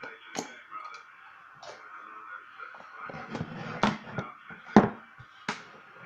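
Brass lock cylinder being taken out of a small metal bench vise and handled: a string of short, sharp metal clicks and knocks, the loudest and deepest about three-quarters of the way through.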